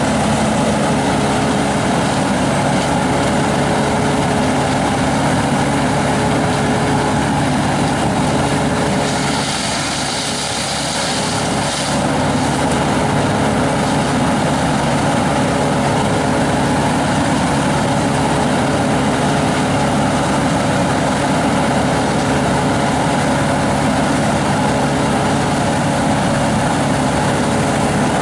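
A heavy engine running steadily at an even speed, the kind that powers tree-service equipment. About nine seconds in, a hiss joins it for roughly three seconds.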